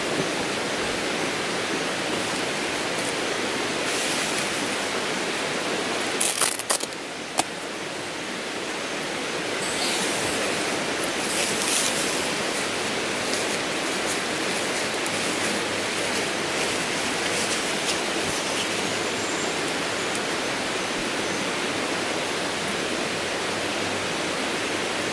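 Steady rushing of running water, like a creek. A few sharp clicks stand out about six to seven and a half seconds in, with lighter ticks around ten to twelve seconds.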